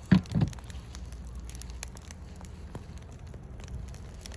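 Wood campfire crackling, with scattered sharp pops. Two low thumps just after the start are the loudest sounds.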